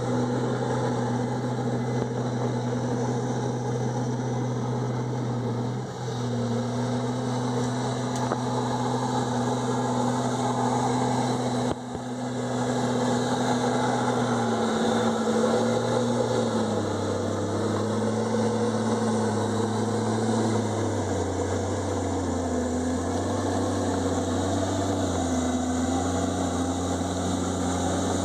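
Komatsu D51EX bulldozer's diesel engine running steadily. Its engine note drops a little past halfway through and then wavers up and down, with two brief dips in the sound earlier on.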